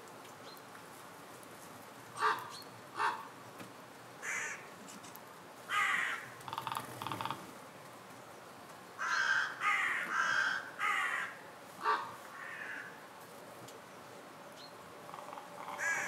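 Crows cawing: about a dozen harsh caws, spaced out at first, then several in quick succession around the middle.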